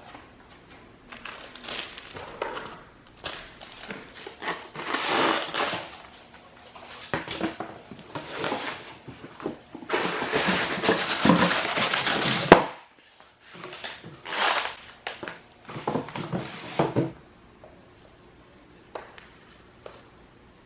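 Rustling, crinkling and scraping of packaging being handled and opened, in irregular bursts with a sharp click about twelve seconds in. It quietens near the end.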